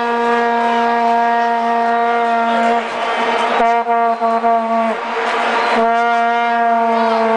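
Plastic vuvuzela blown right beside the microphone: one steady, loud note with many overtones, held in long blasts broken briefly about three and five seconds in.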